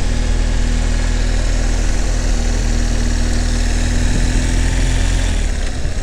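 Motorcycle engine running steadily at low speed in a low gear, with wind rushing over the microphone. The steady engine note falls away about five seconds in as the rider eases off.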